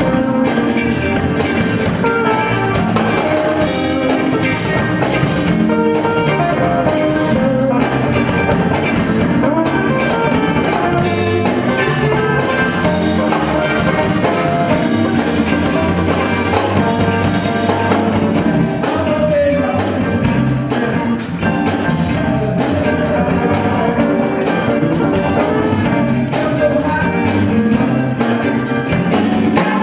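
Live blues band playing: two electric guitars, electric bass and drum kit.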